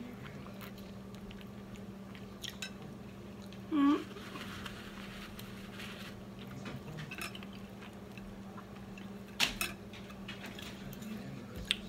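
Close-up eating sounds: chewing fried chicken, with a few sharp clicks of cutlery on a plate, the loudest after nine seconds. A short hummed "mm" about four seconds in, over a steady low hum.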